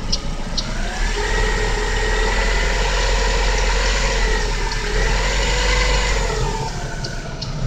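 GM Daewoo Lacetti's 1.5L F15D3 DOHC inline-four, run cold, ticking about twice a second at idle. About a second in it is revved and held, dips briefly, is revved again, then drops back to idle near the end, where the ticking returns. The tick is a cold-idle noise that goes away once the engine is warm, loudest between the exhaust camshaft pulley and the power steering pump.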